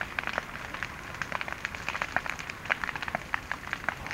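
Burning grass and brush crackling, with many quick, irregular snaps and pops.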